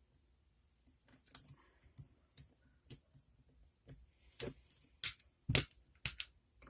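Irregular light clicks and taps of small metal parts and tools being handled as a picked lock is taken apart, with a louder knock about five and a half seconds in.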